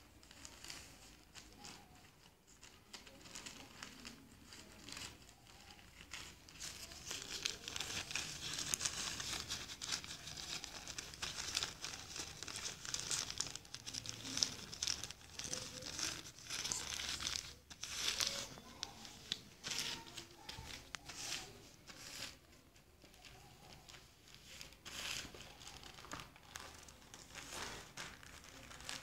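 Newspaper being folded and creased by hand, the paper crinkling and rustling with short sharp crackles as the folds are pressed flat; it is louder through the middle stretch.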